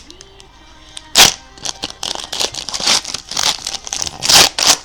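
Trading cards and their plastic packaging being handled: a sharp crack about a second in, then a run of crinkling and rustling.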